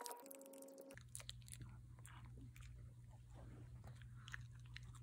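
Small dog (Shih Tzu) chewing a hard treat: faint, irregular crunches. A low steady hum starts about a second in.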